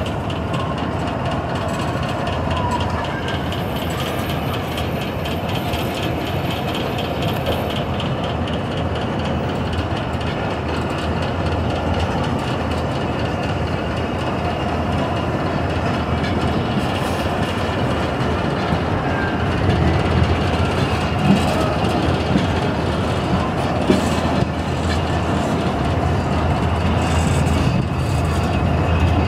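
Pak Business Express passenger train running along the track: a steady rumble of coach wheels on the rails, with a couple of sharp clicks about two-thirds of the way through.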